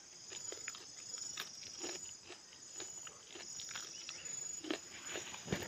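Insect chorus trilling in a steady high rasp, with short clicks and crackles scattered through it.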